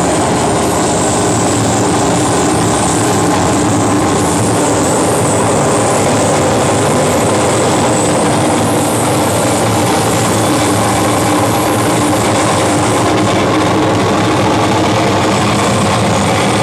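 Live noise music: a loud, dense, unbroken wall of electronic noise with steady droning tones underneath, played on electronics wired together with cables.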